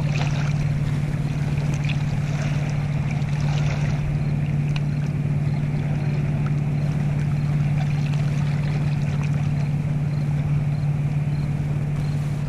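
A steady, unchanging low motor hum, like a boat engine running at a constant speed, over a faint wash of river water at the rocky shore.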